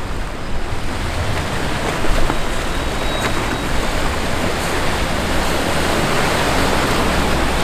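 Steady rush of churning, choppy canal water, with wind buffeting the microphone and a low rumble underneath.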